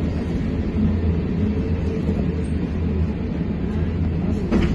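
Trolza-5275.06 "Optima" trolleybus on the move, heard from inside the passenger cabin: a steady low rumble of running noise, with a short knock near the end.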